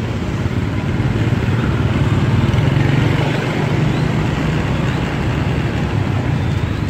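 Road traffic noise with vehicle engines, a steady low hum that swells a little around the middle.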